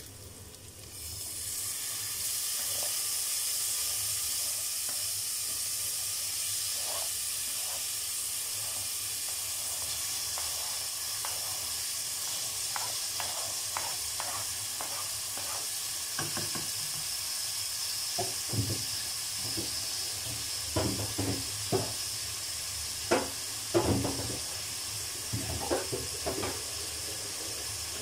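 Onions and chopped tomatoes frying in hot oil in a pot with a steady sizzle. From about halfway there are scattered knocks and scrapes as a wooden spoon pushes tomato off a plastic cutting board and stirs against the pot.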